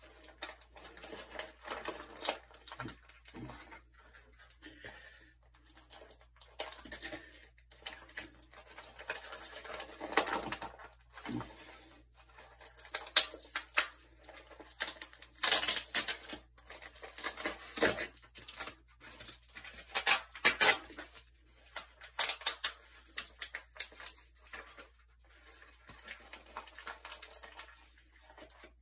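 Hands tearing and crinkling the packaging of a taped shipping package, opened without scissors: irregular rustles and rips, loudest in the middle stretch.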